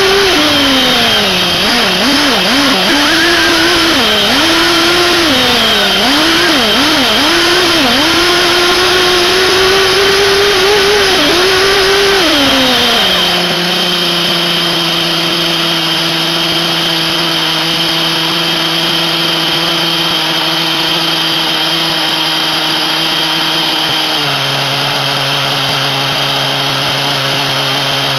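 SH PT21-P3 .21 nitro glow engine of a 1/8 buggy revving up and down in repeated throttle blips, then dropping to a steady idle about 13 seconds in. The idle settles a step lower about 24 seconds in.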